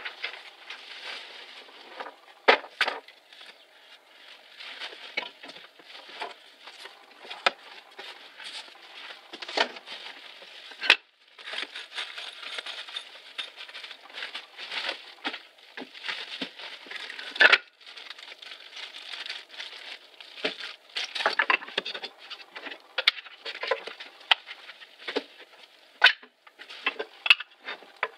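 Bubble wrap and plastic packaging rustling and crackling as they are handled, with several sharp knocks from loose wooden workbench parts being moved about in their cardboard box.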